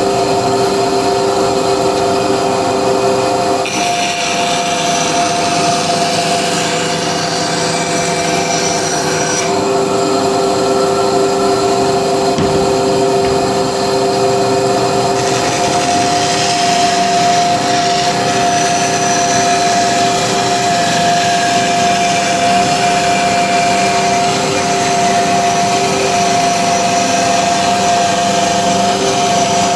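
Electric woodworking power tool running steadily with a continuous motor tone that shifts a few times as it works.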